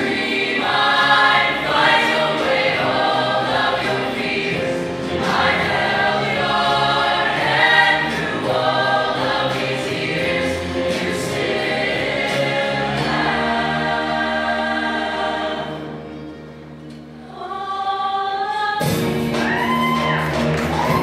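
Show choir of mixed voices singing in harmony. The singing drops to a quieter held passage about sixteen seconds in, then the full ensemble comes back in suddenly near the end.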